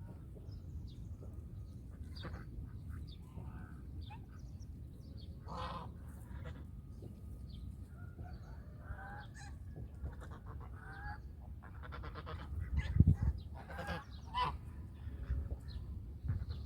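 Geese honking in scattered calls, some in quick rattling series, getting busier in the second half, over a steady low rumble. A low thump about thirteen seconds in is the loudest moment.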